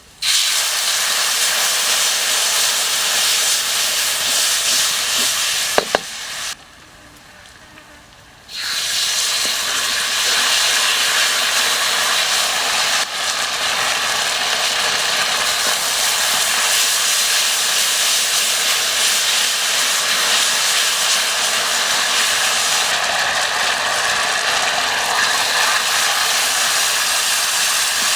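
Food sizzling over a campfire, a loud steady hiss that breaks off for about two seconds after six seconds in, then carries on.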